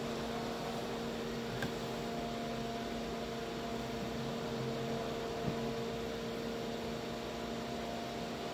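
Steady electrical hum: a low buzzing tone with higher overtones over faint room hiss. Two faint clicks sound, about a second and a half in and again about five and a half seconds in.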